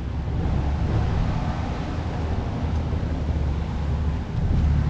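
Wind buffeting an outdoor microphone, a steady rumbling rush, over a low steady background hum.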